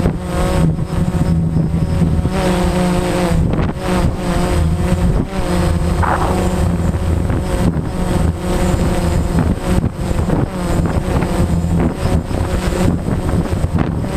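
DJI Phantom quadcopter's motors and propellers whining, their pitch drifting up and down as the motors work against strong wind. Heavy wind buffeting on the microphone rumbles underneath.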